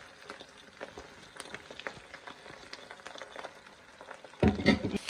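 Chopped pork buche and chorizo frying quietly in a pan, a faint steady sizzle with scattered small crackles. A louder thump comes about four and a half seconds in.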